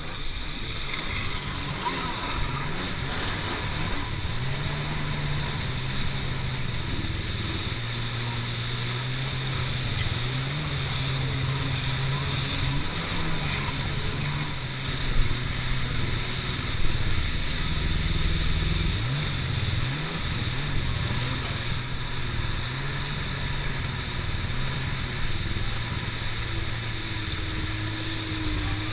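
Stand-up jet ski engine running at speed, its pitch rising and falling with throttle changes, over a steady rush of water spray and wind.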